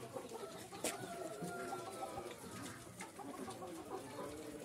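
Faint calls of farmyard poultry, chickens among them, with one long drawn-out call about a second in.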